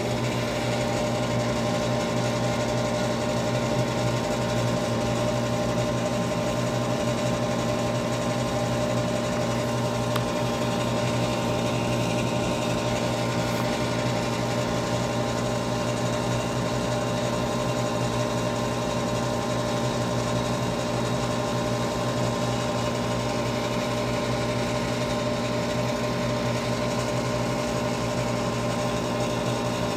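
Goodman gas furnace starting up: its fan motor finishes winding up to speed right at the start, then runs with a steady hum and whine.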